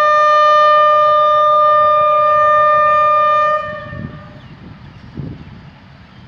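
Diesel locomotive's air horn giving one long, steady note of about four seconds as the express departs, then cutting off. A low rumble of outdoor noise with a few soft thumps remains afterwards.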